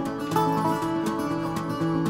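Background music with a plucked acoustic guitar, its notes changing every fraction of a second.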